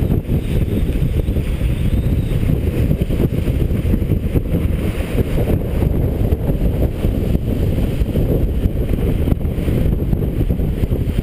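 Wind buffeting the microphone aboard a sailboat under way in a strong breeze: a dense, steady low rumble with rapid flutter.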